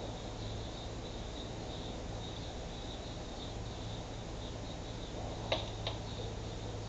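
Insects chirping in a steady, high, slightly pulsing trill, over a low hum. Two sharp clicks come near the end.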